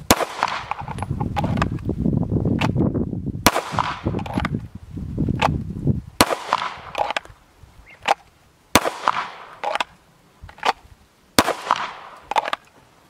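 Airsoft pistol fired in a string of about a dozen sharp shots, spaced from under a second to a couple of seconds apart. Wind rumbles on the microphone through the first half.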